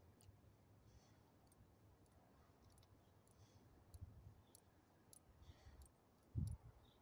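Faint clicking and soft smacking of a small dog eating treats from a hand, with a low thump near the end.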